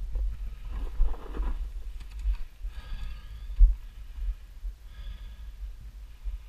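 Low, uneven wind rumble buffeting the action camera's microphone as a Onewheel XR+ rolls along a dirt trail, with a louder gust about a second in. Two brief high-pitched sounds come about three and five seconds in.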